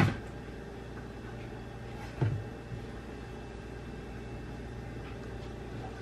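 Steady low hum with a sharp knock at the very start and another about two seconds in, as things are handled on a kitchen counter.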